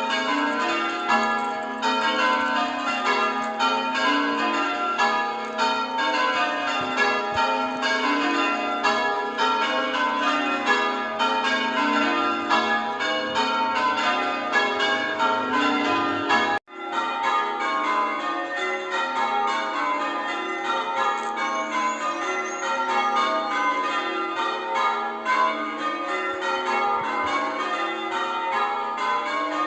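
Church tower bells rung in change ringing: a continuous run of bell strikes one after another, their tones overlapping as they ring on. The sound drops out for an instant about halfway through.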